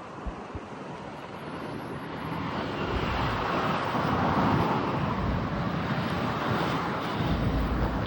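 Strong wind buffeting the microphone, a rushing noise with low rumbling gusts that swells about two seconds in and surges again near the end.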